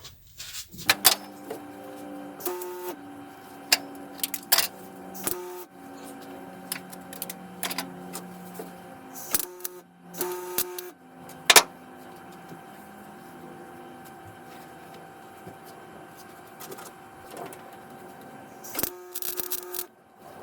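Welding the seat-belt anchor plate into the body: short bursts of arc welding, with a steady hum between them. The bursts come thickest in the first half and again near the end.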